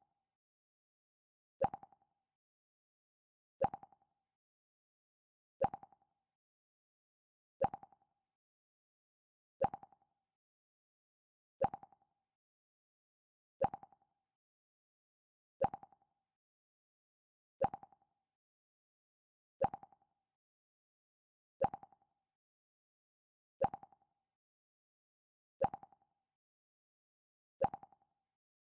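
Mac OS X 'Pluck' alert sound: a short plucked tone that dies away quickly, repeated every two seconds with silence between.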